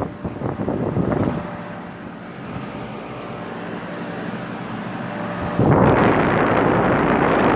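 2008 NuTone 2.5-ton heat pump outdoor units running, a steady hum of several tones. Loud air rushing over the microphone at the start and again from about five and a half seconds in, starting and stopping abruptly.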